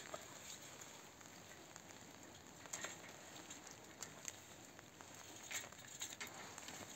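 Faint, scattered clicks and snips of hand pruning shears cutting grapevine canes, with light rustling of the woody canes being handled.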